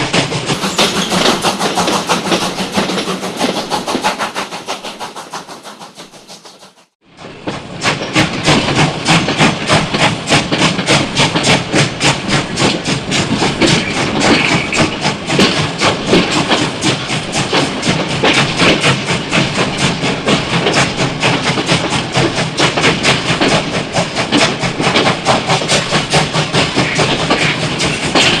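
Train running on rails. A steady rush of noise fades away over the first seven seconds, then starts again abruptly as a loud, fast, even clatter that keeps going.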